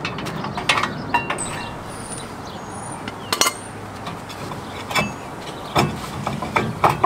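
Scattered metallic clinks and knocks from an old rear brake rotor being worked loose from the wheel hub of a pickup truck.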